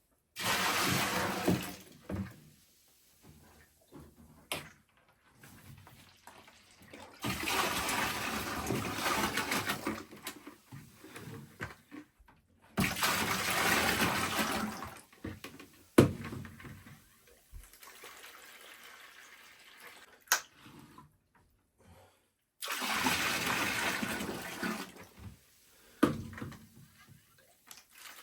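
Water gushing from a washing machine's disconnected drain hose into a bucket in four spurts of two to three seconds each, with a few sharp knocks in between.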